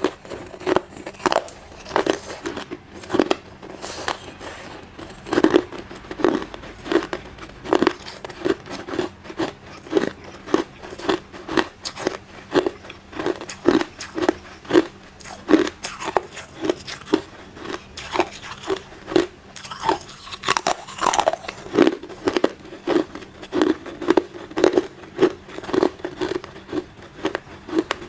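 Close-miked crunching of hard ice being bitten and chewed, a steady run of sharp crunches about two a second.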